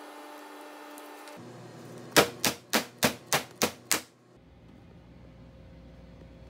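Metal baking sheet of freshly piped macaron shells rapped down on the work surface seven times in quick succession, about four knocks a second, the step that knocks air bubbles out of the batter before the shells rest.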